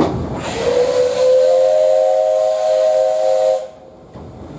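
Steam whistle of JNR Class 8620 locomotive No. 8630, blown once for about three seconds: a rush of steam hiss, then a chord of several steady tones that slides up slightly at the start and cuts off sharply.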